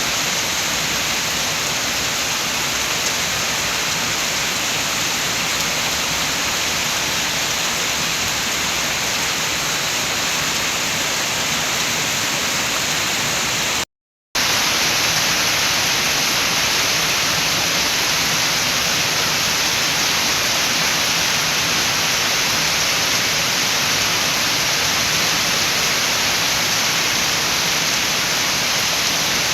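Steady rain with wind, a dense even hiss with no distinct drops or gusts standing out. The sound cuts out completely for a split second about halfway through, then resumes unchanged.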